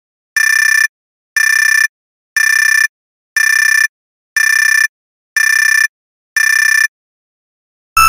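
Warning buzzer alarm sounding in even half-second beeps, about one a second, each a steady high tone; the beeping stops about seven seconds in.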